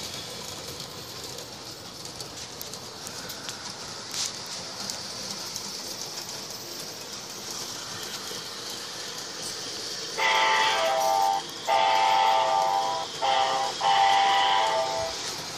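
Model train running on its track with a steady hiss, then, about ten seconds in, its horn sounds four blasts, long, long, short, long: the grade-crossing signal.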